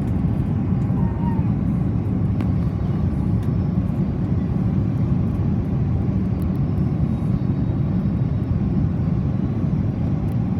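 Steady low rumble inside the cabin of an Airbus A330-300 airliner, the mix of airflow and its Rolls-Royce Trent 700 turbofan engines, holding even throughout.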